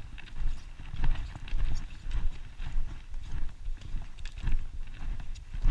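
Footsteps on loose, flat shale stones at a steady walking pace, about two steps a second, each a short knock and clatter of stone.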